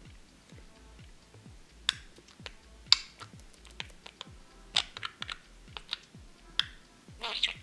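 A budgerigar's short, high chirps and chatter, about five brief bursts with the longest near the end, among many quick sharp clicks and taps.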